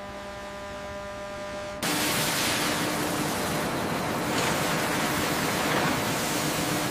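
A steady machinery hum with several held tones. About two seconds in it is cut off by a loud, steady hiss of steam venting.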